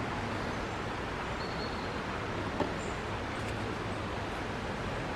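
Steady outdoor background noise, an even hiss with no distinct source, with one faint click about two and a half seconds in.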